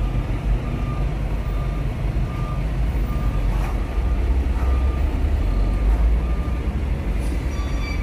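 Heavy truck engines running in a steady low rumble while a tow truck works to pull a stuck cargo truck free. Over it, a reversing alarm sounds short high beeps about every half second.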